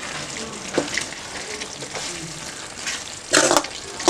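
A metal spoon stirring prawns in a thick masala gravy in an aluminium kadai over low heat, with a steady sizzle, a few light clicks and a louder scrape of the spoon against the pan a little past three seconds in.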